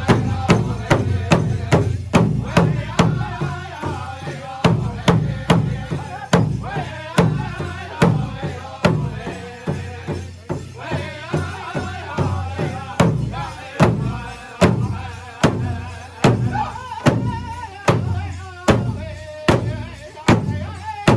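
Powwow drum group performing: a large hand drum struck in a steady beat of about two strikes a second by several drummers, with the group's voices singing over it.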